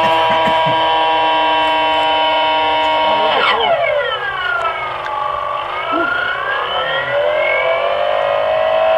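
Radio-controlled model airplane's motor droning in flight at a steady pitch, then dropping sharply about three and a half seconds in and sweeping slowly down and back up as it passes.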